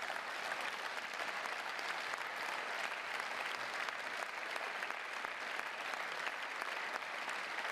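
Applause from a large seated audience, many people clapping steadily at an even level.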